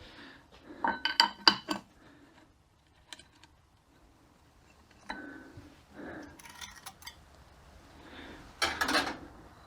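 Metal parts of a 42RE transmission's overdrive assembly clinking and clattering as they are handled and pulled apart. There is a quick run of sharp clinks about a second in, a few lighter taps and scrapes in the middle, and another loud cluster near the end.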